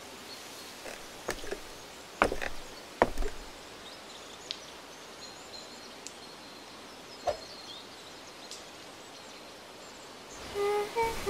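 Quiet outdoor ambience: a steady soft hiss broken by a few sharp clicks and knocks, the loudest about two and three seconds in, with faint high chirps in the middle. Musical tones come back in near the end.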